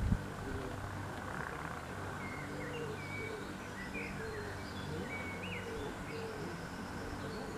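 Birds calling over the steady low hum of a DB class 225 diesel locomotive's engine: a repeated low cooing call and scattered higher chirps.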